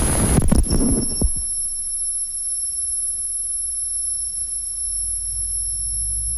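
Harsh noise music from cut-up modular electronics. A dense blast of noise cuts off abruptly about half a second in, then a few sharp clicks. A steady low hum follows, with thin high whining tones above it, and the low hum grows stronger near the end.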